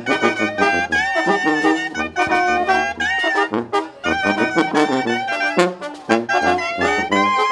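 Mexican brass band (banda de viento) playing: trumpets, trombones and saxophones in short, choppy accented phrases over a low brass bass line.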